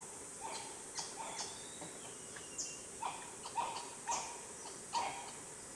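Brown-headed spider monkey giving short high calls that drop in pitch, about one a second, over a steady high-pitched drone of insects.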